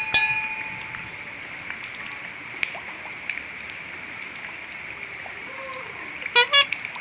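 Steady hiss of falling rain and running water. Short horn-like toots sound right at the start and twice more about six and a half seconds in.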